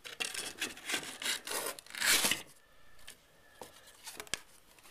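A solid brick of caked powdered non-dairy creamer scraping and rubbing against cardboard as it is handled and put back into its canister, with the strongest scrape about two seconds in. It is followed by quieter handling and a few light clicks near the end.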